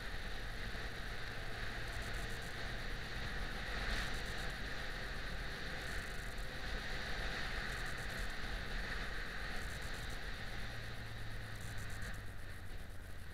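Yamaha XJ6 Diversion's 600 cc inline-four engine running steadily while the motorcycle is ridden, under a steady hiss of road and wind noise, easing off a little near the end.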